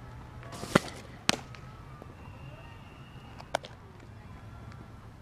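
Sharp pops of softball pitching: the ball smacking into a leather glove, three times. The first pop, about three quarters of a second in, is the loudest and comes after a brief rush of motion; a second follows about half a second later and a fainter one near the middle.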